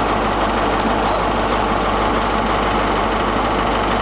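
Class 43 HST power car's diesel engine idling steadily at close range.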